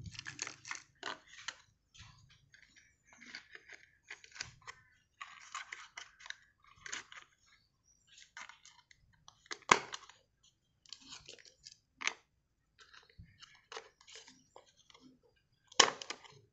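Hard plastic toy truck parts being handled and fitted together: wheels on thin metal axles pushed into a black plastic chassis, with a run of small scrapes and rattles and a few sharp clicks, the loudest near the middle and just before the end.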